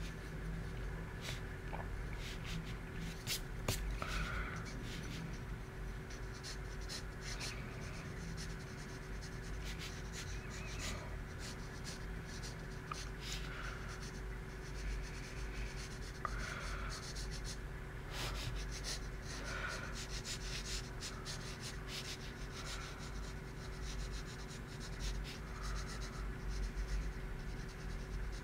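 Pencil sketching on paper: short scratchy strokes in irregular runs with brief pauses between them, over a steady low background hum.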